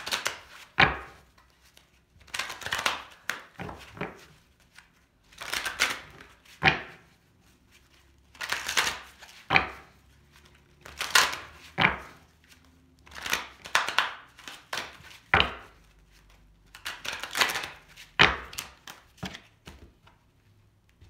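Tarot deck being shuffled by hand in repeated bouts about every two to three seconds: a papery crackle of cards sliding over one another, most bouts ending in a sharp knock.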